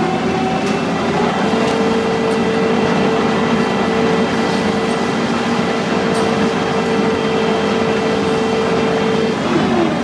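Engine of a farm vehicle running steadily while driving, with a steady whine whose pitch shifts about a second in and again near the end.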